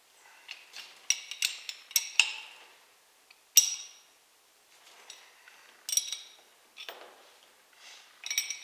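Metal parts of a hand brake-line flaring tool clinking and tapping as they are handled and set, a run of sharp ringing clinks with short pauses between them.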